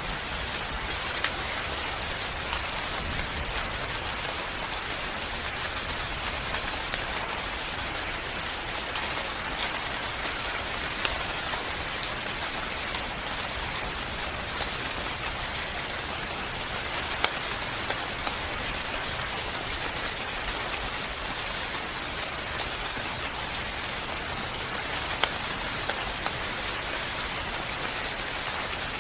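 Steady rain falling, with now and then a louder single drop striking close by.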